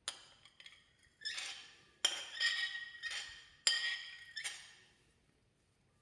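A utensil clinking against a glass bowl about seven or eight times, the bowl ringing briefly after each strike.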